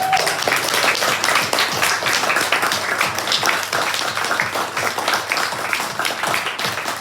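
Audience applauding: a steady spatter of many hands clapping at the end of a song.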